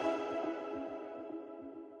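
Electronic background music fading out: held synth tones over a quick, steady pulsing beat, dying away.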